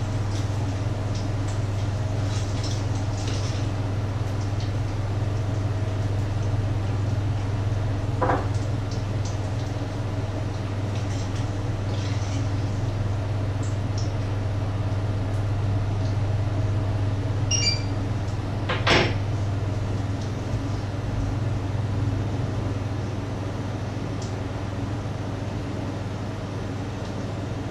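A steady low hum with scattered clinks and knocks of pans and utensils at an electric stove where eggs and potatoes are frying; the sharpest knock comes about two-thirds of the way through.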